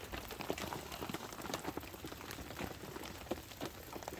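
Water drops pattering irregularly onto surfaces after a hailstorm, many scattered small ticks over a faint steady wash of noise.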